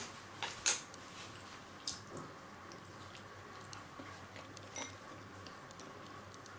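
A person eating soft, syrup-soaked sweets: scattered short, wet mouth smacks and squishes, the loudest about half a second in, with a few more spread through.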